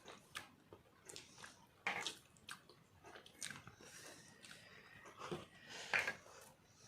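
Soft chewing and mouth sounds of people eating boiled eggs, with irregular small clicks and two louder short sounds about two and six seconds in.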